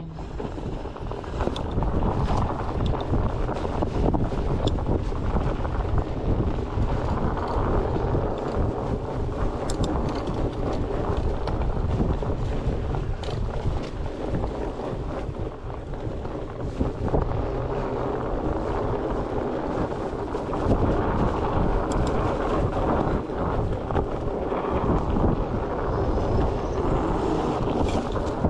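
Wind buffeting the microphone and mountain bike tyres rolling over a dirt trail while riding, a steady rushing noise with occasional sharp clicks and rattles from the bike over bumps.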